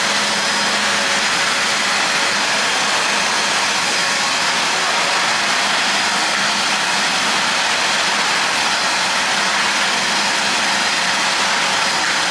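AGARO Rapid 1000-watt wet-and-dry vacuum cleaner running steadily at full power, sucking up water from a wet floor.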